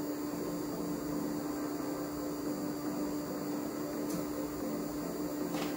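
Phrozen Sonic Mini 4K resin 3D printer running with its cooling fan on: a steady hum with one clear tone over a noisy whir, the noisiest of the three printers compared.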